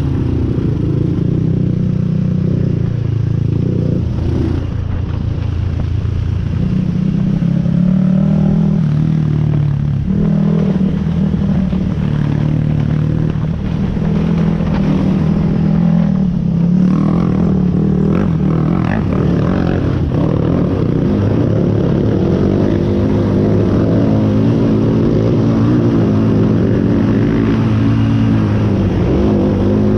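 Engine of an off-road trail-riding vehicle running continuously, its pitch rising and falling with the throttle over the trail.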